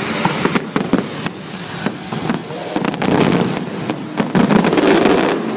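Fireworks display: a rapid string of bangs and crackles, densest about three seconds in and again in the last second and a half.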